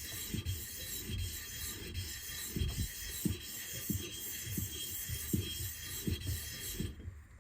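Steel chisel being rubbed back and forth on a wet sharpening stone, about two to three strokes a second, honing a secondary bevel with the chisel lifted slightly off the stone; the strokes stop near the end.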